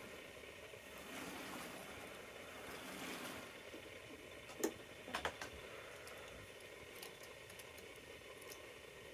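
Tri-ang or Lima model railway wagons running along the track: a steady, faint rumble of small wheels on the rails, with a few sharp clicks about halfway through.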